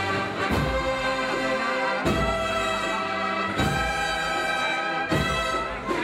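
Brass band playing a slow processional march: sustained brass chords over a bass drum beat about every second and a half.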